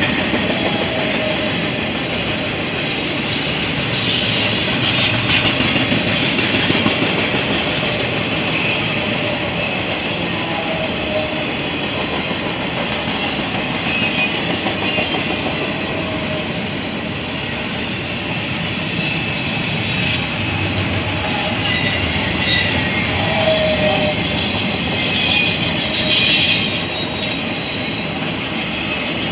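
Double-stack intermodal freight train rolling past steadily, its wheels rumbling and clicking along the rails, with brief high wheel squeals now and then.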